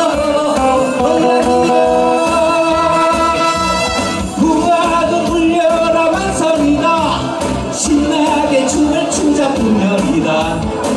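A man singing a Korean trot song into a microphone, backed by a band with a steady drum beat, amplified through a PA system.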